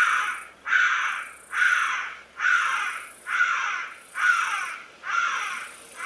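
A Southern African bird or mammal call: a harsh call repeated steadily about once a second, each one falling slightly in pitch.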